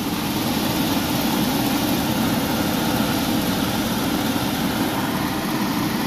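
Furnace blower motor running steadily: a constant rush of air over a low hum. It keeps running after the control board has shut the rest of the system down on an open safety-switch circuit.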